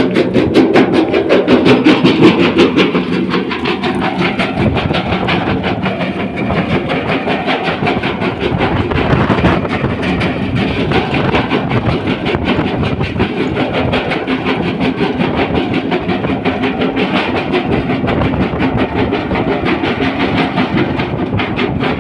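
L&T CB250 crusher bucket working on an excavator: a rapid, even, rhythmic clatter over steady machinery noise, loudest in the first three seconds.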